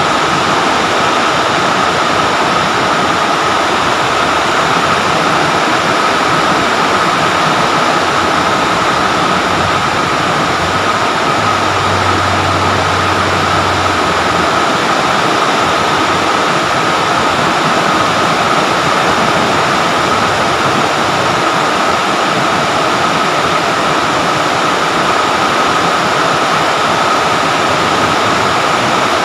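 Rain falling steadily on trees and leaves, a loud, even hiss.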